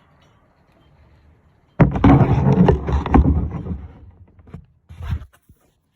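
Handling noise: after a quiet start, a few seconds of loud scraping and clattering with sharp knocks, then two short bursts near the end.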